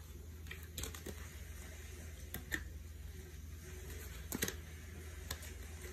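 Faint, irregular clicks and taps of an oracle card deck being shuffled and handled by hand, over a steady low hum.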